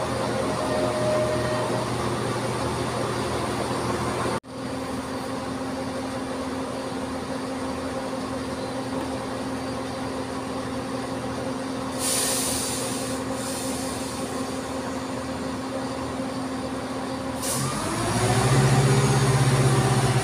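Class 170 Turbostar diesel multiple unit idling at the platform, its underfloor diesel engines giving a steady hum, with two short hisses of air about twelve and seventeen seconds in. Near the end the engines rev up, the note rising and growing louder as the train starts to pull away.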